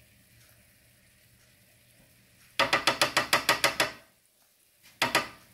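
A small utensil tapping quickly against a little cup of Dijon mustard, knocking the mustard into the pan: a fast run of about ten sharp clicks lasting just over a second, and two or three more near the end.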